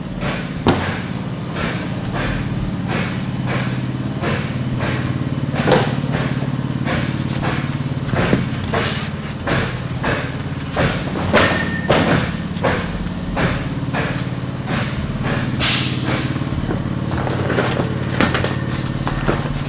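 Lamination-line gluing machine travelling over a plywood floor panel while laying a second pass of urethane glue. It gives a steady motor hum with a running series of sharp clacks and knocks.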